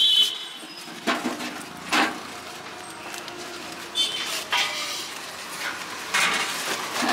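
A samosa being broken up by hand in a disposable foam bowl: a few short crackles and scrapes, with a brief high squeak at the start and again about four seconds in.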